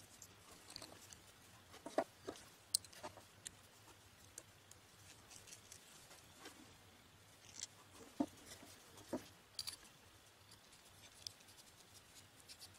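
Faint, scattered clicks and taps of a Cigar pen kit's small metal fittings and resin-and-horn barrel being handled and twisted together by hand, with a few sharper clicks two to three seconds in and again past the middle, over a faint steady low hum.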